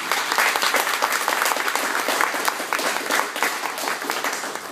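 Audience applauding: many hands clapping at once in a dense patter that starts suddenly and eases off slightly near the end.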